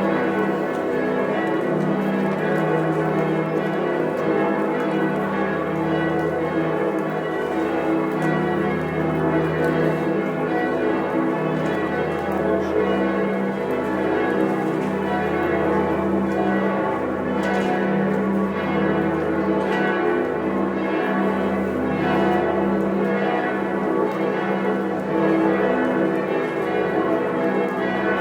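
Several large church bells swinging and ringing together in a dense, unbroken peal. Beneath the higher strokes, a deep bell's hum swells and fades about every two seconds.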